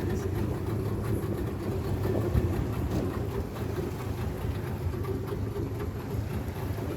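A small tour boat's motor running steadily with a low hum.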